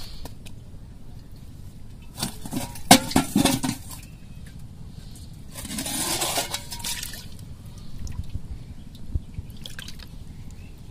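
Live caught fish knocking against a metal bowl, a cluster of sharp knocks about two to three seconds in, then a burst of water splashing and sloshing around the fish about six seconds in.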